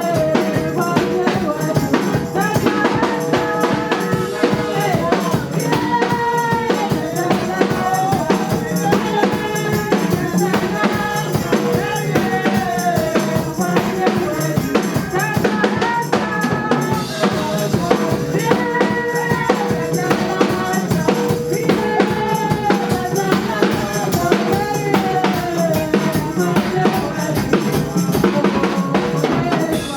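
Live praise music driven by a drum kit, with bass drum and snare keeping a steady beat under a melody line.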